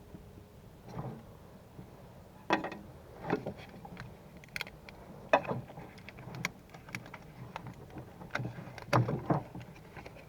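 Irregular clanks, clicks and knocks of hand tools and metal parts being handled while working on battery cables in an engine bay, about ten separate knocks spread unevenly.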